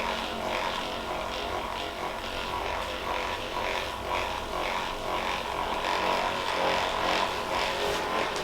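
A steady mechanical hum, with a constant drone that holds its pitch.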